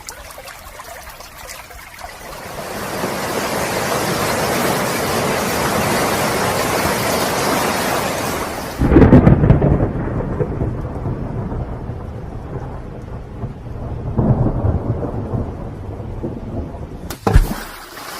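Rain building into a heavy downpour, then a loud thunderclap about nine seconds in whose rumble slowly dies away. A second rumble swells a few seconds later, and a short sharp crack comes near the end.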